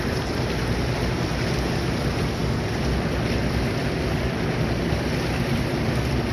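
Steady rushing noise of fast river current around a small fishing boat, with wind on the microphone and a low hum underneath.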